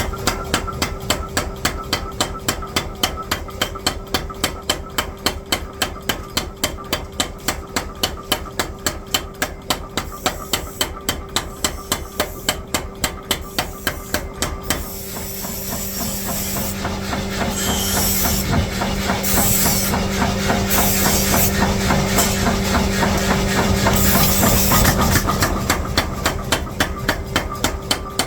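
Forging hammer striking steel in a rapid, even rhythm of blows over a steady machine hum. About halfway through, a hissing noise swells for some ten seconds, then fades while the hammering goes on.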